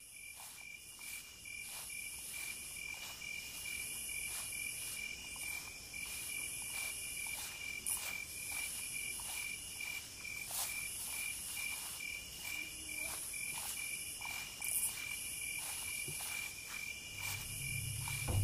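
Night ambience of crickets chirping in a steady, fast pulse, with phrases of higher insect buzzing every second or two. A low rumble rises in near the end.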